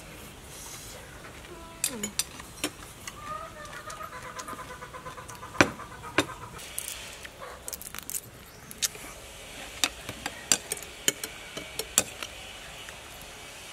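Cooked mud crab shells cracking and snapping as they are broken apart by hand: a run of sharp, irregular cracks, the loudest about five and a half seconds in.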